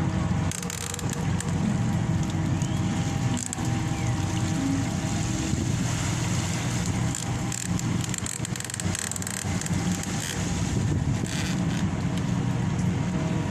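Anchovy purse seiner's engine running steadily as a low hum, with irregular hissing rushes over it.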